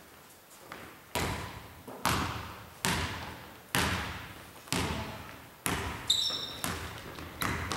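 Basketball dribbled on a wooden gymnasium floor, about one bounce a second, each bounce echoing around the hall. A short sneaker squeak on the floor comes about six seconds in.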